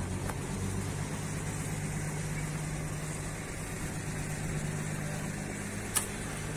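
Slipway winch engine idling steadily, with one short sharp knock near the end.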